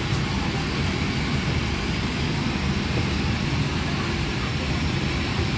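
Steady rushing rumble of an airliner's cabin air-conditioning, heard from the aisle during boarding with the engines not yet in flight.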